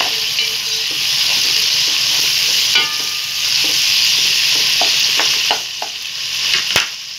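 Onions, tomatoes and bay leaves sizzling in oil in a pot while a wooden spatula stirs them, with scattered clicks and knocks of the spatula against the pot. The sizzle fades about five and a half seconds in.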